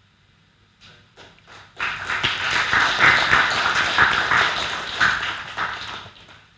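Audience applauding: a few scattered claps, then dense steady clapping for about four seconds that dies away near the end.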